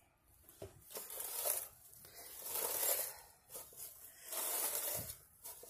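Straw broom sweeping snow off a round mosaic-topped metal patio table: three main brushing strokes with short pauses between them.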